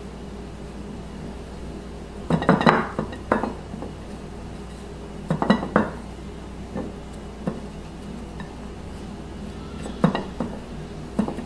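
A hand pressing and patting breadcrumbs onto a chicken cutlet in a plate, heard as three short bursts of crunching and plate clinks: about two seconds in, about five seconds in, and near the end.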